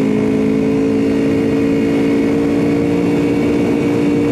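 Aprilia RSV4 RF's V4 engine running at a steady cruising speed, its pitch holding nearly constant, over steady wind noise.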